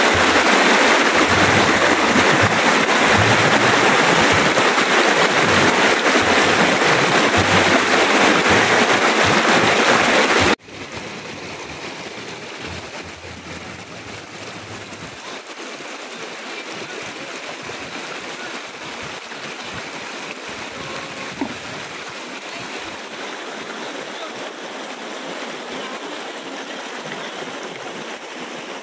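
Shallow river rapids rushing over rocks: a steady wash of water noise. About ten seconds in, it drops suddenly to a quieter level and carries on.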